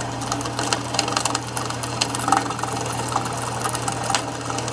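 Small drill press running with its bit cutting into the end of a half-inch square keyway-stock bar clamped in a vise: a steady motor hum with a scratchy crackle of metal being cut.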